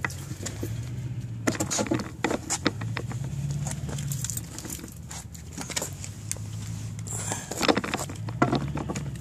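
Scattered clicks and knocks of a screwdriver and screws being handled against a gate opener's plastic motor cover, over a low steady hum.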